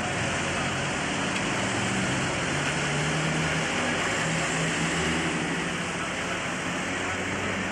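Muddy floodwater running across a street, a steady rushing hiss of water. A low engine hum sits underneath it for a few seconds in the middle.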